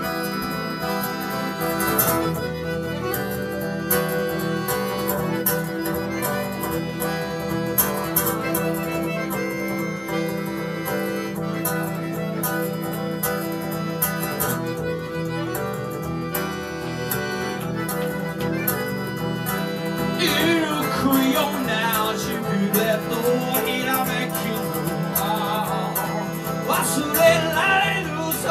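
Live instrumental music from a chromatic button accordion and an acoustic guitar playing together. About twenty seconds in, a wavering lead melody with strong vibrato joins above them and grows louder near the end.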